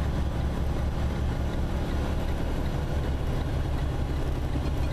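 Truck's engine and road noise heard inside the cab while driving on the highway: a steady low rumble with no change in pace.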